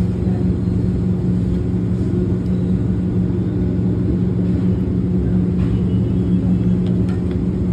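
A steady low mechanical hum, even in level throughout, with a strong low tone.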